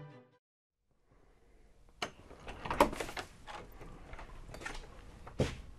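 Fiddle music fading out, a moment of silence, then a person coming through a door: a handful of irregular knocks and clicks from the door and footsteps, loudest about three seconds in and again near the end.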